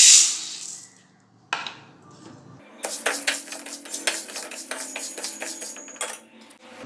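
Whole urad dal poured into an empty metal kadai, a loud rattling hiss as the dry lentils hit the pan. From about three seconds in, a spatula stirs the lentils as they dry-roast, a quick clatter of lentils and spatula against the metal that stops about six seconds in.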